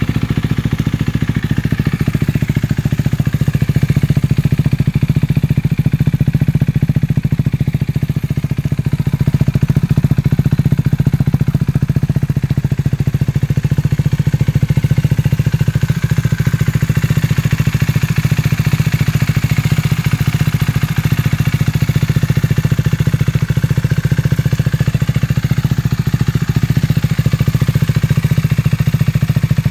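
KTM 390 Duke's single-cylinder engine idling steadily through a Leo Vince slip-on exhaust with a de-catted Arrow mid pipe.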